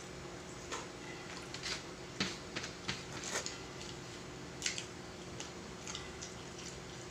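Eating utensils clicking and scraping against plates in irregular light clicks, over a faint steady hum.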